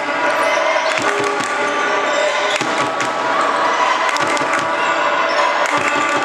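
Handball bouncing repeatedly on a wooden sports-hall floor as players dribble and pass, a series of short thuds.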